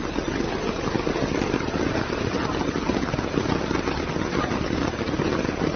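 Steady loud storm noise of wind and rain, an even rushing with dense fine pattering that does not change.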